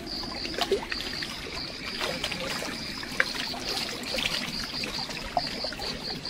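Small waves lapping and trickling against the rocks at the water's edge, with scattered light clicks. A steady high-pitched pulsing, about three pulses a second, runs underneath.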